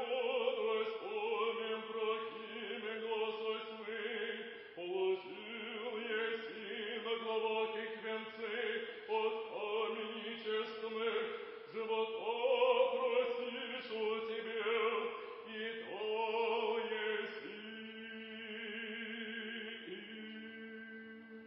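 Eastern Orthodox chant: voices singing a slow melody over a steady held drone, growing quieter in the last few seconds.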